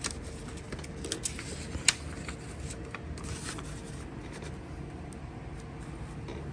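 Paper instruction booklet being handled and its pages turned: brief rustles and light clicks, the sharpest click about two seconds in, over a faint steady hum.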